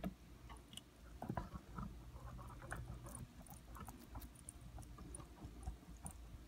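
Faint, scattered small clicks and sticky crackles of a spoon stirring glue slime in a glass bowl as the borax activator starts to set it.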